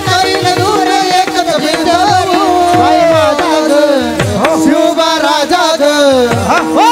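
A male voice singing a Marathi Warkari devotional song with a wavering melody, over a steady held drone, mridang drum strokes and small hand cymbals. Near the end the voice glides up into a long high held note.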